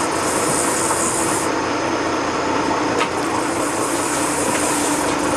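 Boat engine running steadily under way, with a low steady hum beneath a continuous rush of wind and water.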